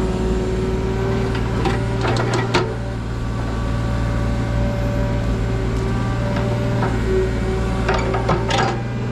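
Mini excavator engine running at a steady hum while concrete chunks are dropped into a steel dump truck bed, with clattering knocks of concrete hitting and scraping the steel twice, about two seconds in and again near the end.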